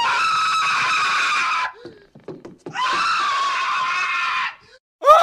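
A cartoon character's high-pitched scream, twice, each held for nearly two seconds, with a few short faint sounds in the gap between. A third scream starts right at the end.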